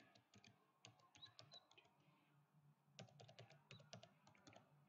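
Faint computer keyboard typing: quick keystrokes in two runs, one about a second in and a longer one from about three seconds in.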